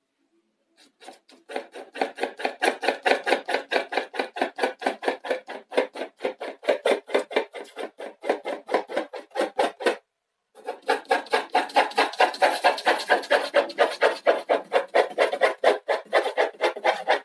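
2B graphite pencil hatching on drawing paper, laying a second pass of tone. Rapid, even back-and-forth strokes come about four or five a second, with a short break a little past halfway.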